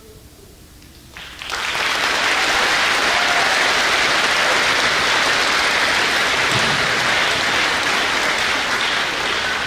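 Audience applauding, a dense steady clapping that starts about a second and a half in and holds to the end.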